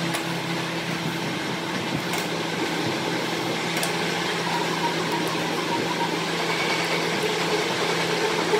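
A machine running steadily: an even hum with a whirring noise over it, and a few faint clicks.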